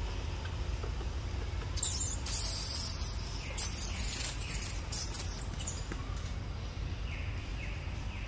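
High-pitched cicada buzz, starting abruptly about two seconds in and running for about four seconds before it cuts off, over a low steady rumble. Faint short chirps come near the end.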